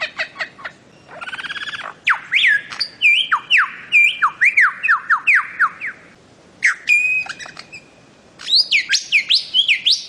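Bird-of-paradise calling. A fast buzzy rattle about a second in is followed by loud runs of sharply falling notes, several a second, with short gaps, then another quick burst of falling notes near the end.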